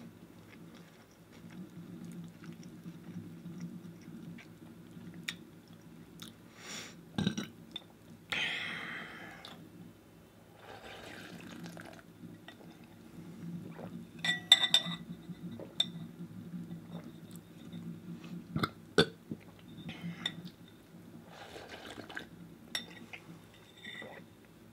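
Eating cereal with milk from a bowl: a spoon clinks against the bowl now and then, with one ringing clink about halfway through, and there are short wet, liquid sounds of milk between the clinks.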